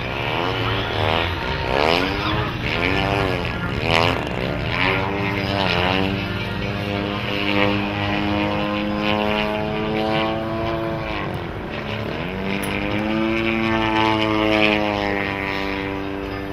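Radio-controlled 3D aerobatic model plane flying, its motor and propeller note swinging rapidly up and down in pitch for the first few seconds, then settling into a steadier drone that drops sharply and climbs again about twelve seconds in.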